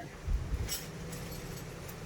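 Hardware being handled: a dull thump about a third of a second in, then a sharp click and a few faint clinks over a steady low rumble.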